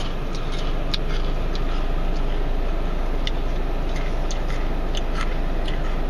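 Steady noise of a car running, heard inside the cabin as a constant hum and rush, with a dozen or so faint crisp crunches from a cracker being chewed.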